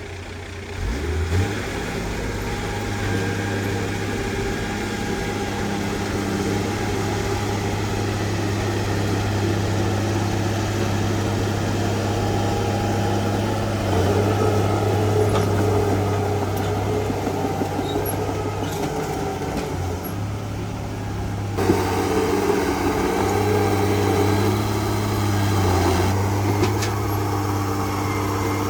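Heavy diesel engine of earthmoving machinery running steadily with a deep, even drone. It gets louder about a second in, and the drone shifts in level twice more, around halfway and again about three-quarters through.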